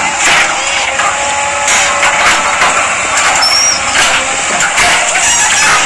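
JCB 3DX backhoe loader working: its diesel engine runs steadily under load as the backhoe arm digs, with irregular clanks and scrapes from the bucket and arm in the soil.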